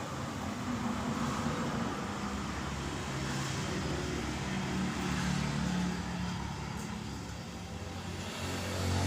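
A motor vehicle's engine running, its pitch shifting up and down a little, over street traffic noise.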